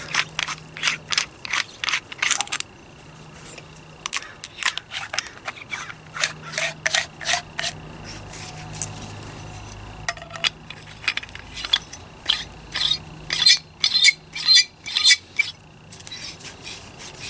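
Steel threaded handle sections and head of a multi-tool survival hatchet being unscrewed and screwed together by hand. The metal threads and joints make three runs of quick ticking and scraping, several ticks a second, with short pauses between.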